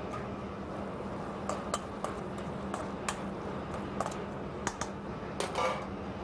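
A utensil clinking and tapping irregularly against a stainless steel mixing bowl as crab cake mixture is stirred, with one short ringing clink near the end, over a steady low room hum.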